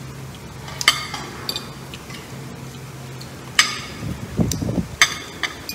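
Knife and fork clinking and scraping on a plate while food is cut: a few sharp clinks, the clearest about three and a half and five seconds in.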